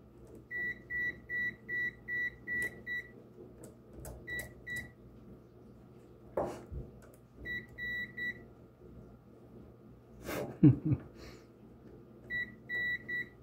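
Digital clamp meter in its live-wire detection mode beeping in short runs of quick, high, even beeps, about two and a half a second, as a test lead touches the terminals of the transformer's outlet: the meter is sensing voltage there. A knock about six seconds in and a louder thump about ten and a half seconds in come from handling.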